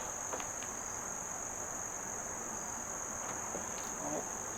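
Crickets trilling in a steady, unbroken high chorus, with a few faint light clicks.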